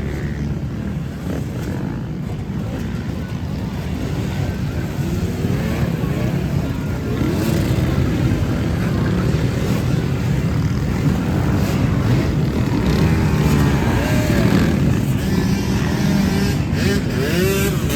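Off-road racing motorcycle engines running and revving, their pitch rising and falling constantly, getting louder about a third of the way in.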